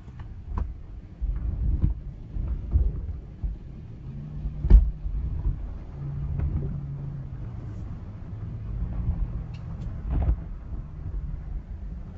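Automatic car wash heard from inside the car cabin: cloth curtain strips slapping and dragging over the windshield and body, over a low rumble. A steady machinery hum comes in for a few seconds in the middle, and there are scattered knocks, the loudest just before five seconds in and another about ten seconds in.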